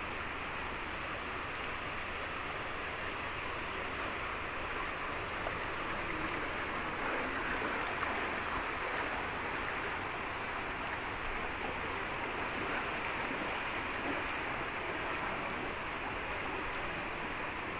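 Steady, even rush of water from the flood.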